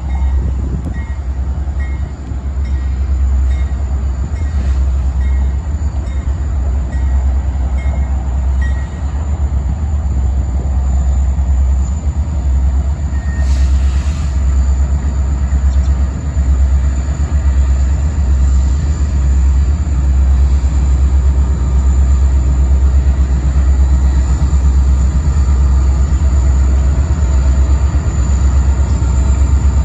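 Diesel freight train with GE and EMD locomotives passing, a steady loud low rumble with uneven pulsing. A brief hiss comes about halfway through.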